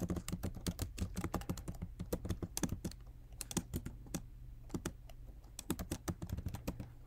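Typing on a computer keyboard: irregular runs of sharp key clicks with a few short pauses between them.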